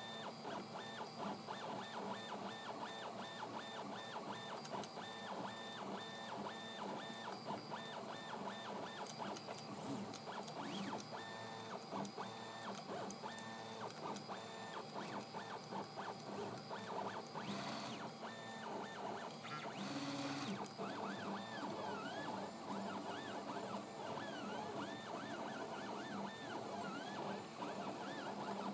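IC3D 3D printer's stepper motors whining as the print head moves while printing, the tones stepping and gliding up and down in pitch with each change of move. Two short hisses come about two-thirds of the way through.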